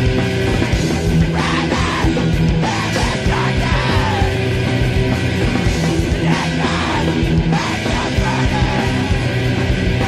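Loud, dense heavy rock music playing without a break.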